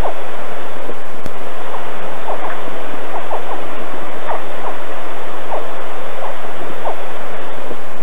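A group of three baby alligators giving short, high-pitched chirping calls, a dozen or so at irregular intervals, over a loud steady hiss.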